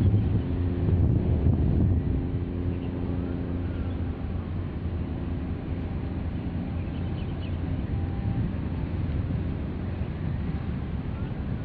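Wind buffeting the microphone as a steady low rumble, with a faint steady low hum under it in the first few seconds.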